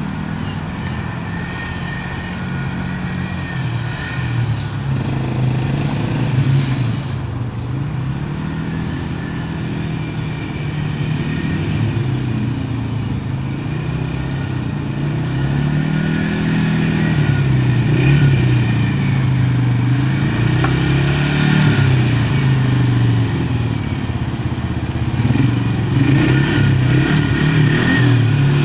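Loud, steady snoring: a low rattling drone whose pitch rises and falls slowly with each breath, with no pauses.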